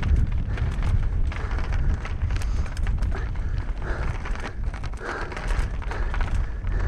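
Wind buffeting the microphone as a Knolly Fugitive LT mountain bike descends dirt singletrack at speed, with tyres rolling over the ground and frequent clicks and rattles from the bike.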